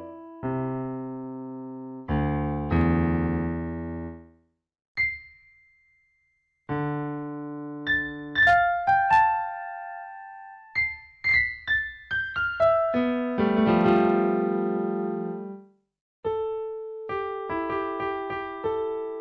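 Background music: solo piano or electric piano playing slow chords and single melody notes that ring out and fade, with two brief gaps where it falls silent.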